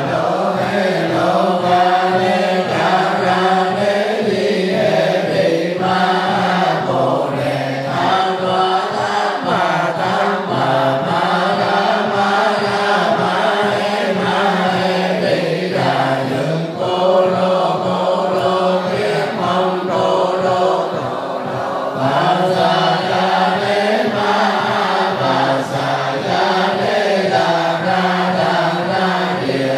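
A group of Buddhist monks and nuns chanting sutras in unison, a steady droning recitation in many voices. Under it runs a regular low beat, about two to three strokes a second, keeping time.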